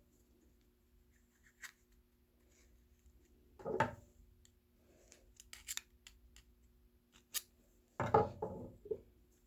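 Close handling sounds of cotton balls being stuffed and packed into a Zippo lighter's metal insert with a screwdriver: scattered light clicks and scrapes, with two louder scraping, rustling bursts, one about four seconds in and one near the end.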